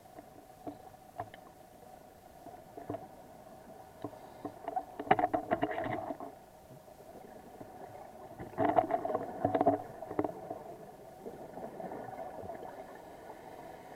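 Underwater sound through a camera housing: a scuba diver's regulator exhaling, bubbles crackling and gurgling in two bursts about five and nine seconds in, over a steady hum.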